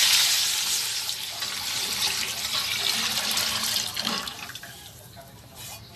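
Beef cooking stock poured steadily from a bowl into a pot of spices tempered in oil and ghee, a splashing pour that tapers off about four seconds in.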